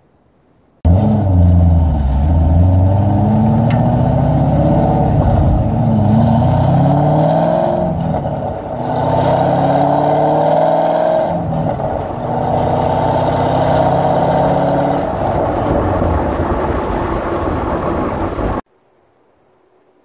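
2001 Corvette Z06's LS6 V8, with long-tube headers, test pipes in place of the catalytic converters, an X-pipe and the factory titanium axle-back exhaust, driven on light throttle: the engine note rises and falls with the revs and dips briefly twice in the middle. It starts abruptly about a second in and cuts off shortly before the end.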